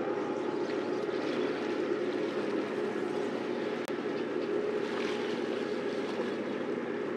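Steady wash of wind and sea noise at the shoreline, with a momentary break a little under four seconds in.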